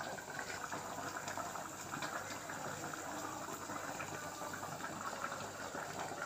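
Thick mango curry simmering in an earthenware pot, a steady fine bubbling and spitting.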